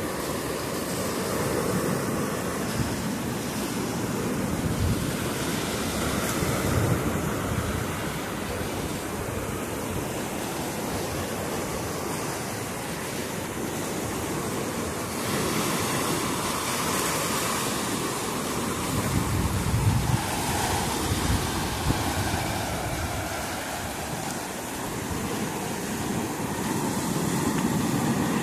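Rough sea surf breaking and washing up a sandy shore and against rocks and a concrete pier, rising and falling with each wave, with louder crashes about a quarter of the way in and again past the middle. Wind is blowing on the microphone.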